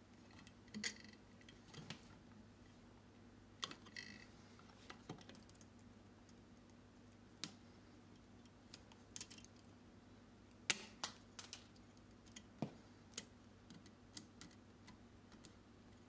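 Faint, irregular clicks and ticks of a wire stripper's jaws against copper wire as the bare wire ends are bent into loops for the outlet's terminal screws.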